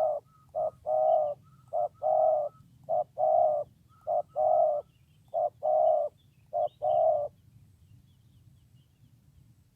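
Spotted dove cooing in a steady series of paired notes, a short note followed by a longer one, about one pair every second and a bit; the cooing stops about seven seconds in. Faint small-bird chirps sound higher up.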